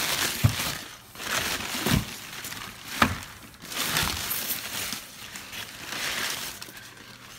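Crumpled brown packing paper and bubble wrap rustling and crinkling as hands dig through a cardboard box, with two sharp knocks about half a second and three seconds in.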